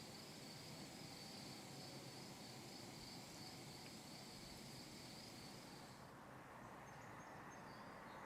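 Faint, steady high trilling of crickets in a field. The trill stops abruptly about six seconds in, leaving a few faint short high chirps.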